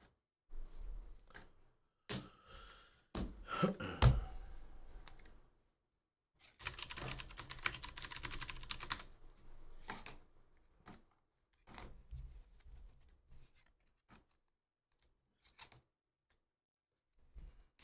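Typing on a computer keyboard: scattered key clicks, with a quick run of keystrokes in the middle. A louder thump comes about four seconds in.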